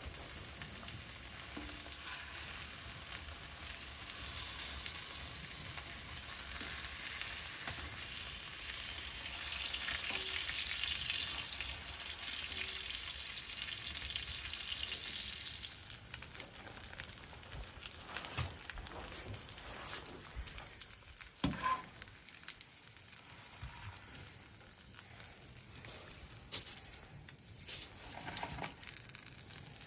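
Steaks sizzling in a frying pan, a steady hiss that dies down about halfway through, followed by scattered small clicks and knocks.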